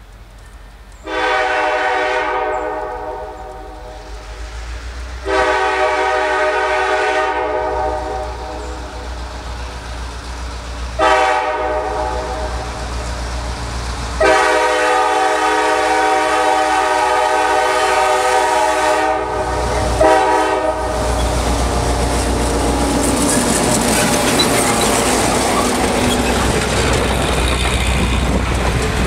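Diesel locomotive's air horn sounding the grade-crossing signal, two long blasts, a short one and a final long one, as it approaches. Then the locomotive and its passenger coaches roll past close by, a steady loud noise of wheels on rail.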